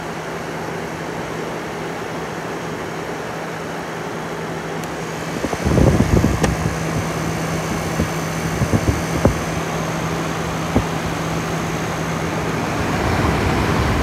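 1960s Westinghouse Custom Mobilaire 5000 portable air conditioner running, a steady hum under the rush of its fan, the unit running well. From about five and a half seconds in, gusty low rumbling joins it, with a few sharp knocks around the middle.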